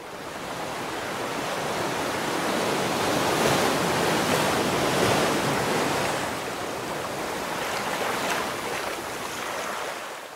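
A rush of noise like surf or wind, rising over the first few seconds, holding through the middle and fading away near the end: the sound effect laid under a channel logo animation.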